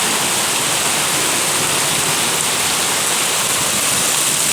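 Hailstorm: rain and hail pelting down hard in a dense, steady hiss.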